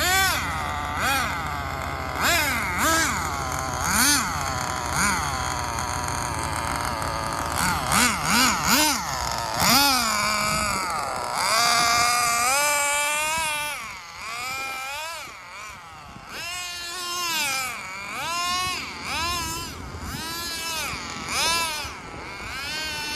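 Small nitro glow engine of an HPI RS4 RC car revving up and down over and over as it is driven, its pitch rising and falling with each blip of the throttle. It sounds quieter and further off from about 14 seconds in.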